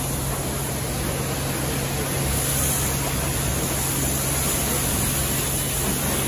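Pressure-washer lance spraying snow foam onto a car's bodywork: a steady, unbroken hiss of spray over a constant low hum.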